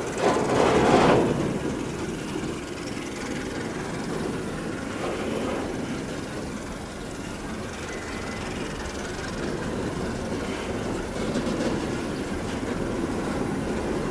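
CC 201 diesel-electric locomotive running as it slowly shunts a long rake of empty coal hopper wagons: a steady mechanical rumble, with a brief louder rush of noise about a second in.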